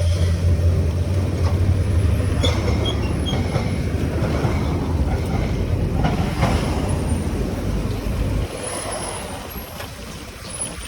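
Yamaha F1ZR two-stroke motorcycle engine running on the road under wind and road noise, with a steady low drone; the drone falls away about eight and a half seconds in and the sound gets quieter.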